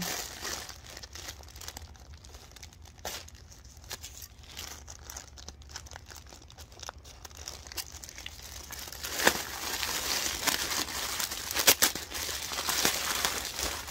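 Plastic poly mailer bag crinkling and tearing as it is cut and pulled open and the contents are taken out. Soft rustling at first, then louder crinkling with a few sharp crackles in the second half.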